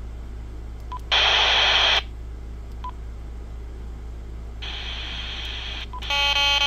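Quansheng UV-K5 handheld radio's speaker: short key beeps and two bursts of receiver hiss, the first loud and about a second long, as the squelch opens while the radio scans. Just before the end a steady buzzing tone with several pitches starts.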